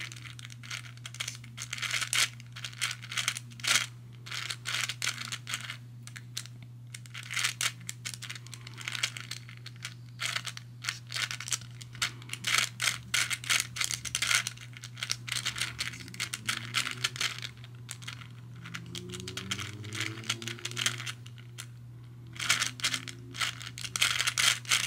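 Hungarian Rings puzzle being turned by hand: its balls roll and click along the ring tracks in irregular bursts of rattling. A steady low hum runs underneath.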